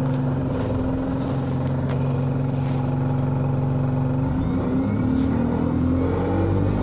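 An Alexander Dennis Enviro200 single-deck bus's diesel engine running steadily. About four seconds in the engine note changes and begins to rise, and a high whine climbs steadily in pitch as the bus revs up.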